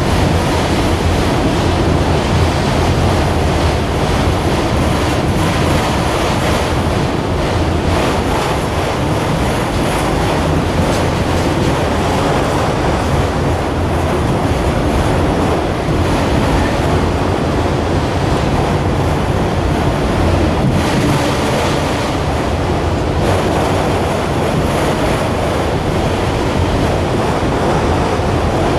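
Freight train of autorack cars rolling past, with a steady, loud rolling noise of steel wheels on rail.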